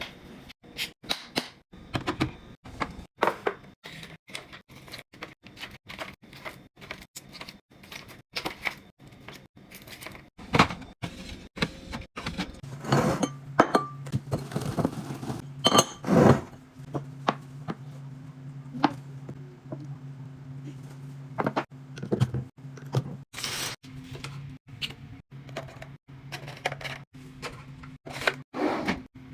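Close-up sounds of packaged food and drinks being handled and set down during a fridge restock: a quick run of knocks, thunks and clinks of containers and bottles, with a steady low hum in the second half.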